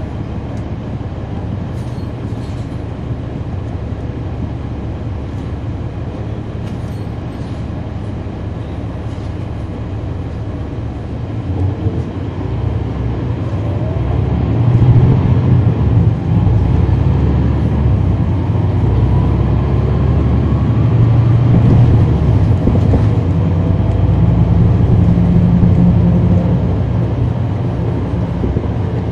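A 2011 NABI 40-foot transit bus's Cummins ISL9 diesel engine, heard from the rear of the passenger cabin. It runs steadily, then pulls harder from about twelve seconds in, getting much louder with a rising tone as the bus accelerates, and stays loud before easing slightly near the end.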